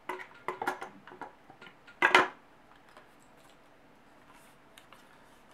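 Metal trigger mechanism of a bullpup kit being fitted into a walnut rifle stock: a run of small clicks and knocks, then one louder knock about two seconds in.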